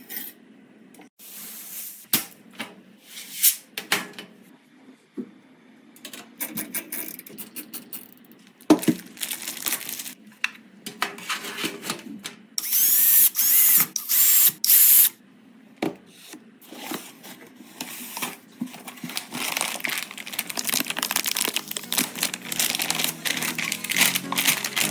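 Computer parts being handled and fitted during a PC build: a run of sharp clicks, taps and scrapes of plastic and metal. About halfway through comes a loud hissing, whirring stretch lasting two to three seconds, like a power screwdriver running.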